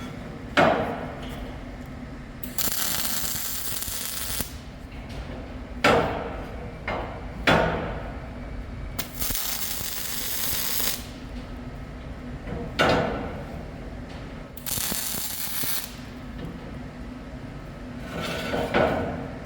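Metal fabrication: three short MIG tack welds, each about two seconds of crackling hiss, between sharp clanks of steel parts being knocked and set in place. A low steady hum runs underneath.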